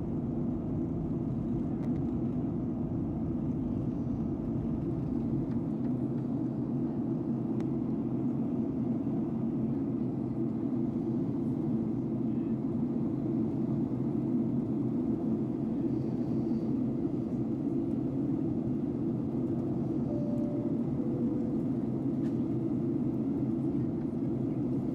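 Steady in-flight cabin noise of a Boeing 737-800, heard inside the cabin: an even low rumble from its CFM56-7B turbofan engines and the airflow over the fuselage, with no change in pitch or level.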